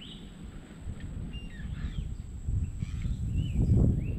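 Birds calling with short whistled notes that slide up and down in pitch, several times, over a low rumble of wind on the microphone that grows louder toward the end.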